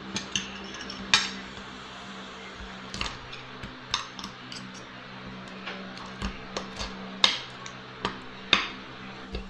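Metal spoon and fork clinking and scraping against a ceramic plate while eating, in irregular sharp clinks, the loudest about a second in and two more near the end.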